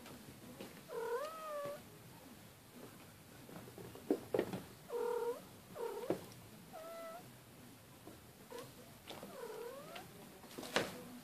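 A cat meowing about four times, short drawn-out calls that bend up and down in pitch, with a few light knocks in between, the loudest near the end.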